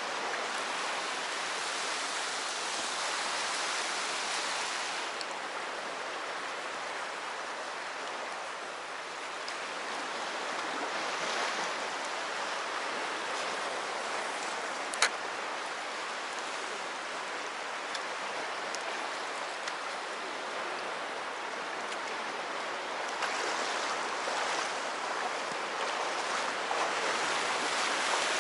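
Sea waves washing steadily onto the shore, swelling and easing every so often. A single sharp click about halfway through.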